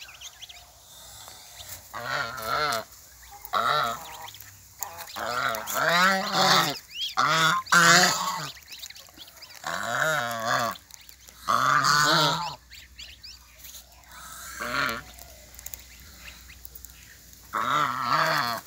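Domestic white geese honking repeatedly in loud bouts of calls, densest from about two to twelve seconds in, with a few more honks near the end.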